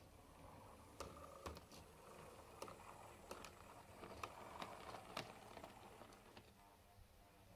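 Small OO-gauge model diesel shunter on a Hornby 0-4-0 chassis running with its wagons: a faint motor whir, with scattered sharp clicks from the wheels on the track. The sound builds about a second in and dies down near the end.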